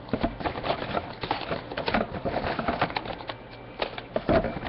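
Rustling and clicking of card packaging being handled: cardboard and foil packs pulled out and shuffled about, in a quick irregular patter of small knocks.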